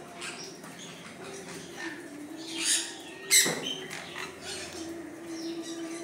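Aviary parrots giving scattered short squawks and calls, with two louder harsh screeches a little past halfway, over a steady low hum.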